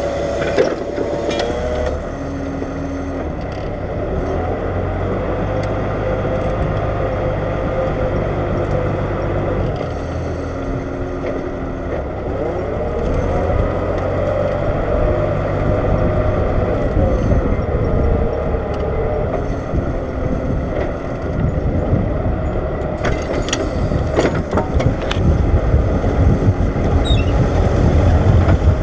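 New Holland 8160 tractor's diesel engine running steadily under load while ploughing, its pitch dipping and climbing back around the middle. The low rumble grows heavier near the end.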